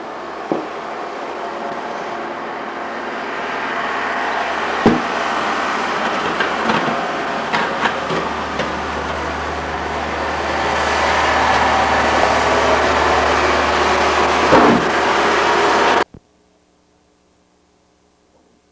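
Snowmobile engine running steadily, slowly growing louder, with a few knocks. The sound cuts off abruptly about 16 seconds in.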